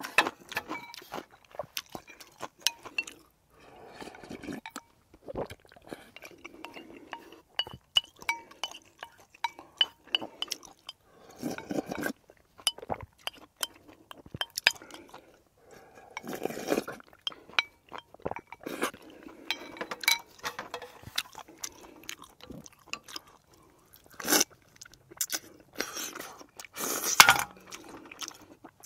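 Close-miked eating: chewing and crunching food, with a metal spoon and utensils clinking against bowls many times. A few louder noisy bursts stand out, the loudest near the end.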